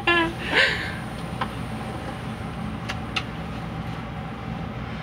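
Elevator car running up its shaft: a steady low hum and rumble of the machinery, with a few faint light clicks.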